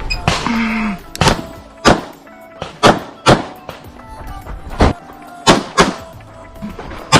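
Handgun shots on an IPSC course of fire, about nine in all, several fired as quick pairs, with background music underneath.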